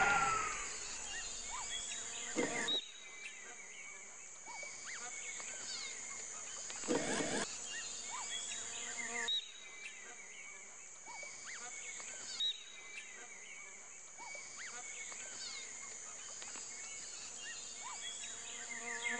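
Insect-filled nature ambience: a steady high-pitched buzzing drone with scattered short chirps. Two brief louder rushes of noise come about two and a half and seven seconds in.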